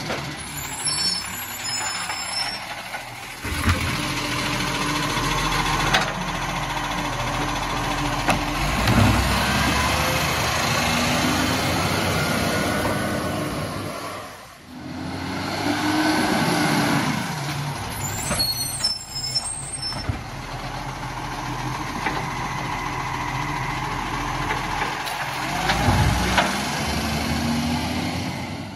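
Side-loading garbage truck's diesel engine running and revving as it moves between kerbside bins, with air-brake hisses and several sharp knocks.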